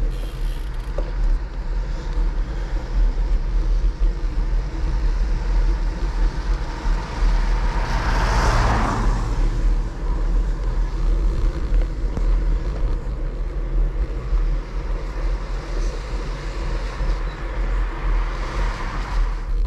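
Steady rumble of riding on a bicycle: wind buffeting the handlebar camera's microphone and tyres hissing on wet tarmac. A vehicle swells past about eight seconds in, and a car comes by near the end.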